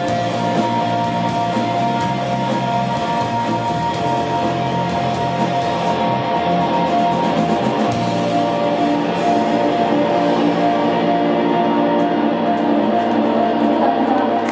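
Live rock band playing loud, with distorted electric guitars holding sustained, droning chords over bass and drums. The bright high wash thins out about six seconds in, leaving the guitar drone.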